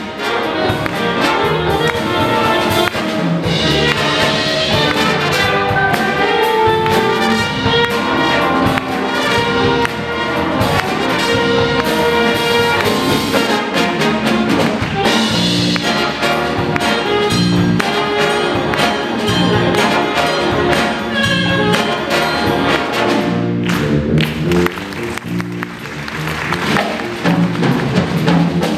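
Student jazz big band playing an upbeat funk-jazz tune live, with trumpets, trombones and saxophones over drum kit and congas and a saxophone solo in front. Near the end the horns stop briefly and a quieter stretch of drums and cymbals follows before the band comes back in.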